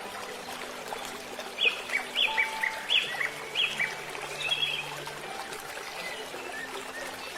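A bird calling: a quick series of about six short, high chirps in the middle, with quieter scattered calls around them.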